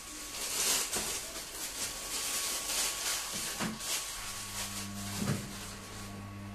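Handling noise from a handheld camera carried through a room: hiss and rustling with a few soft knocks, over a steady low electrical hum that gets louder about four seconds in.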